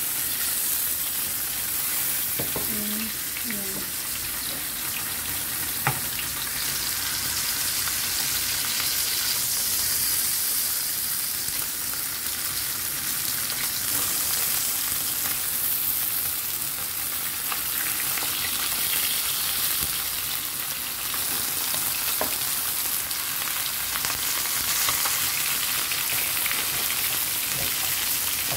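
Whole red snapper pan-frying in a little cooking oil: a steady sizzle. A few sharp clicks of metal tongs against the pan come through as the fish are handled, the loudest about six seconds in.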